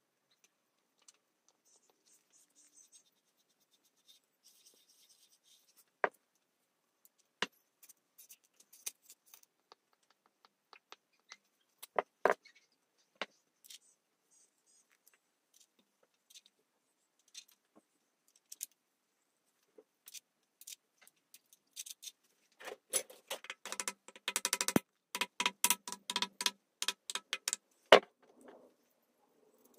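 Scattered metal clicks and taps as camshaft bearing caps are fitted onto a VW 2.0 16v cylinder head. Near the end a fast run of rapid clicks lasts about five seconds and finishes with one sharp knock.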